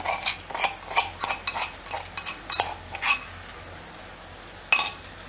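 A spoon tapping and scraping against cookware as ground garlic-chili chutney is spooned into a wok of frying potatoes: a quick run of short clicks for about three seconds, then one more sharp knock near the end.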